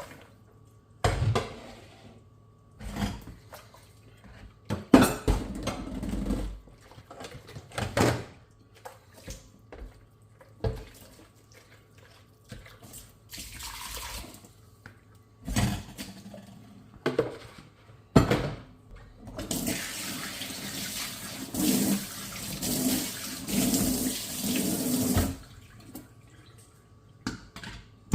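Dishes being washed by hand at a kitchen sink: scattered clinks, knocks and splashes as dishes are handled, then about two-thirds in the tap runs steadily for around six seconds while something is rinsed under it, and stops.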